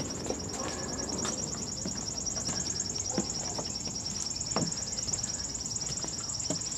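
Insect trilling: a high, steady buzz of rapid pulses, with a few soft knocks about three and four and a half seconds in.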